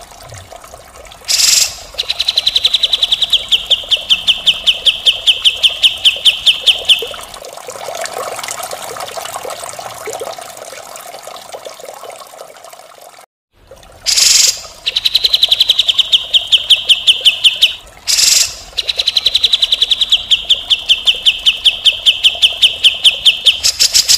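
Grey-cheeked bulbul (cucak jenggot) giving long harsh rattling trills, each a fast train of rasping notes lasting about five seconds, with short harsh bursts between them. From about seven to thirteen seconds in the rattling stops and there is only a fainter noisy background, broken by a moment of dead silence before the trills start again.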